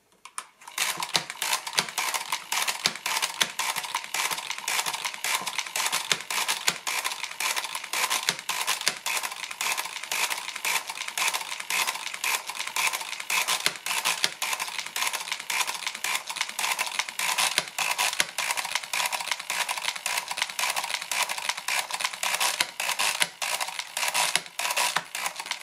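Hamann Manus F mechanical calculator cranked continuously through an automatic division. A dense, rapid clatter of gear and register clicks starts about half a second in and keeps up steadily, as the machine subtracts and shifts its carriage digit by digit.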